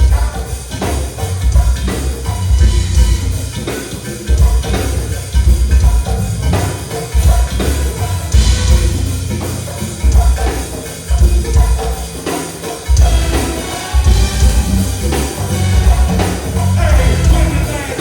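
Dance music with a heavy, repeating bass beat and a singing voice.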